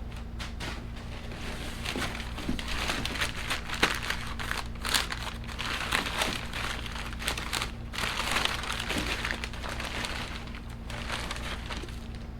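Packaging crinkling and rustling as new parts are unwrapped and handled, with many small irregular crackles, over a steady low hum.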